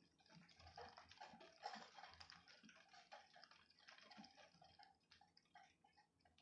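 Faint patter of raindrops dripping during a thunderstorm: many small irregular ticks, thick at first and thinning out near the end.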